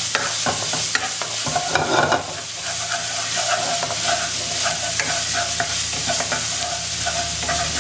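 Minced garlic sizzling in hot oil in a non-stick wok, stirred with a wooden spatula that scrapes and taps against the pan: the garlic is being fried until fragrant.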